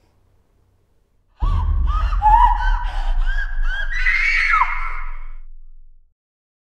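A young woman's anguished screaming and wailing: a run of broken cries that rise and fall in pitch, over a deep rumble. It cuts in suddenly about a second and a half in and fades out near the end.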